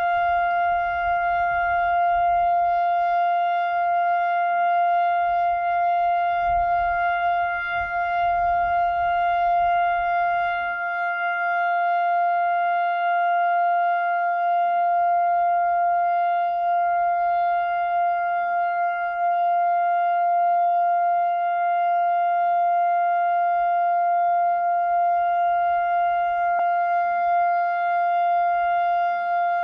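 Israeli civil-defence siren sounding the Yom HaZikaron memorial signal: one long, unbroken steady tone that neither rises nor falls. This is the nationwide remembrance siren for the fallen and victims of terror, not an air-raid alert.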